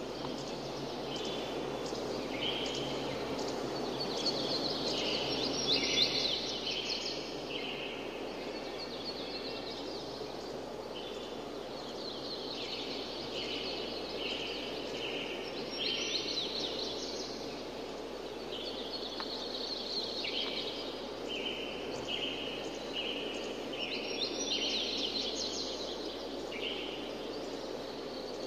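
Birds calling over a steady background hiss: runs of short high chirps mixed with quick rising notes, coming in bouts that return about every ten seconds.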